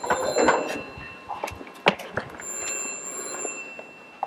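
Telephone ringing: two rings about a second long each, with short footstep knocks on the stage floor between them.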